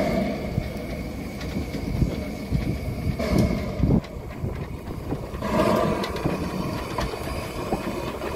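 Hunslet narrow-gauge steam locomotive (built 1906) moving slowly past at close range, with a few sharp knocks from its wheels and motion.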